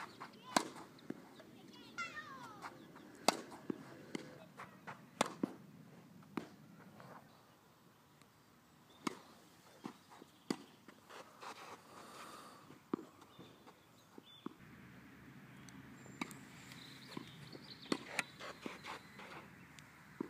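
Tennis balls being hit with a racket and bouncing on the court: sharp pops one to two seconds apart, some in quick pairs. A bird chirps briefly about two seconds in.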